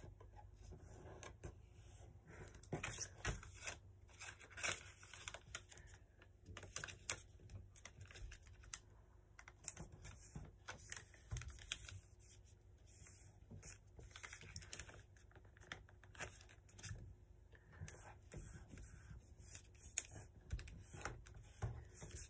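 A sheet of paper being handled and folded by hand: irregular soft rustles and crisp crinkles as it is opened up, creased and pinched, with a few sharper crackles spread through.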